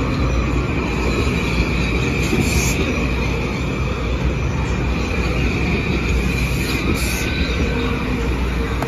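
Metro-North M8 electric multiple-unit train rolling past along the platform as it slows to stop at the station. A steady low rumble, with a constant high squeal over it.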